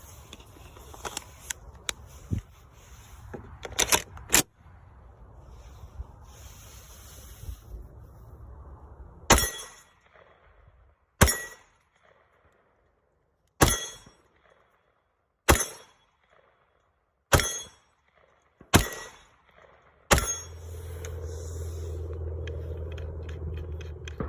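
CZ Shadow 2 9mm pistol fired seven times in slow single shots, about two seconds apart, each shot sharp and short. Before the shots come clicks and scraping from handling the gun.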